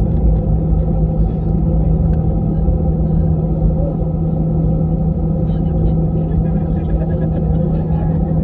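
Airliner cabin noise: a steady engine and airflow rumble with a constant low hum.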